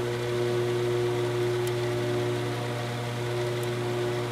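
Metal-cutting band saw running: a steady motor hum with several held tones above it.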